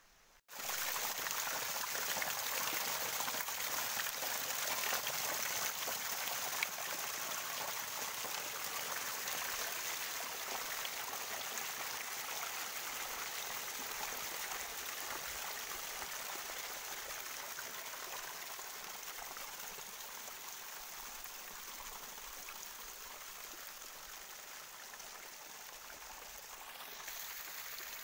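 Spring water pouring over rocks in a small fall, a steady splashing rush. It starts abruptly about half a second in and slowly grows quieter.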